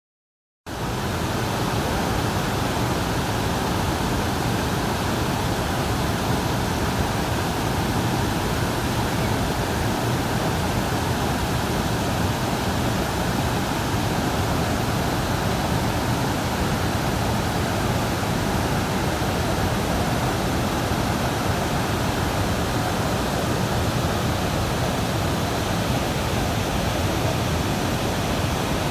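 Waterfall: a steady, unbroken rush of falling water, starting abruptly about half a second in.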